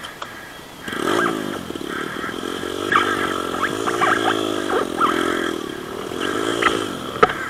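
Dirt bike engine revving up and down in a series of swells. It comes in about a second in, and its pitch rises and falls about five times. A few sharp clicks sound over it.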